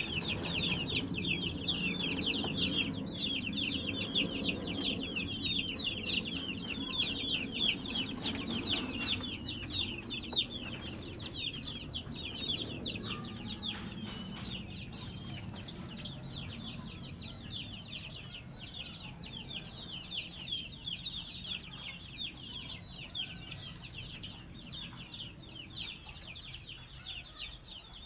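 Many young poultry chicks peeping continuously: a dense chorus of short, high, falling peeps, many per second. A lower, quieter sound sits underneath for the first dozen seconds and fades, and the whole chorus grows slightly quieter toward the end.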